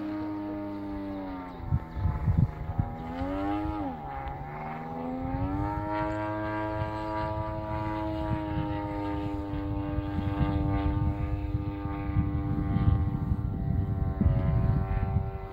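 MVVS model-aircraft engine of a Flamingo M1 RC plane droning high overhead in flight. Its pitch drops and swings about two to four seconds in, then holds steady. Gusty wind noise rumbles on the microphone.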